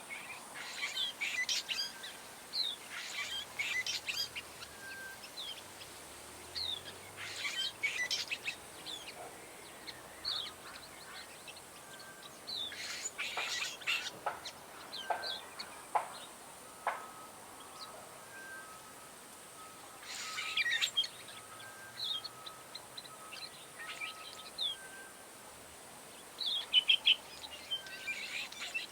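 Cape sugarbird singing: short bursts of scratchy, jumbled chirping notes, repeated every few seconds.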